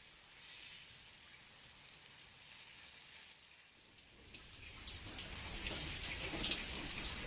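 Heavy rain falling, a hiss of rain with many single drops striking. It grows louder about four seconds in.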